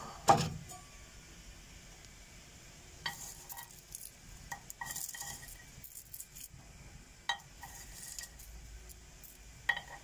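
A loud metal clank shortly after the start, then scattered clinks as hazelnuts roasting in a stainless steel bowl are stirred and rattle against the steel.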